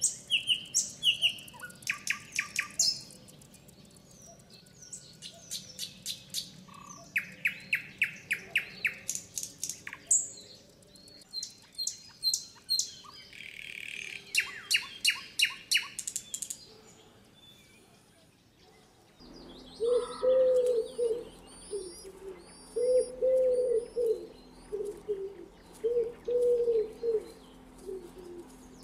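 Songbirds singing, with quick runs of repeated high chirps and trills. After a short lull, about two-thirds of the way in, a dove starts cooing in repeated low phrases while high twittering goes on above it.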